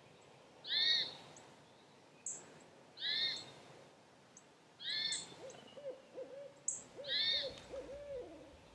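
An owl hooting in a rhythmic series of low notes that ends on a falling hoot, starting about halfway through. Throughout, a short, higher arched call repeats about every two seconds and is the loudest sound.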